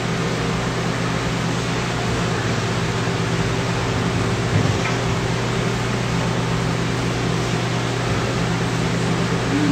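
Steady ventilation noise: an even rush of air over a low motor hum. A single soft thump about four and a half seconds in.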